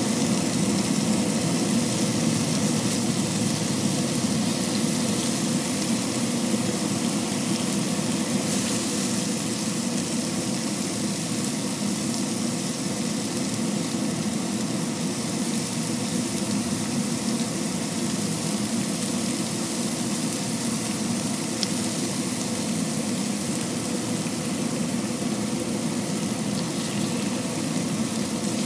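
Chicken strips and beef steaks sizzling steadily in hot oil on a griddle pan, with a steady low hum beneath and an occasional light tap of tongs.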